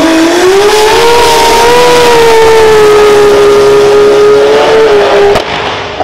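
Drag car's engine at full throttle on a pass, loud. Its pitch climbs over the first second, holds at a nearly steady high note for about four seconds, then cuts off abruptly near the end.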